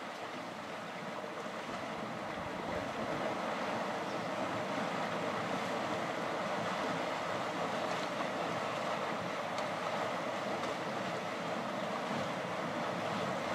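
Steady sloshing and splashing of water as a herd of African elephants wades through the shallows, getting slightly louder about three seconds in.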